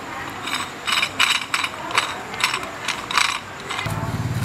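Ratchet wrench clicking in short irregular spurts, about a dozen sharp metallic clicks, as a hex bolt is tightened into a steel bracket. Near the end a steady low hum comes in.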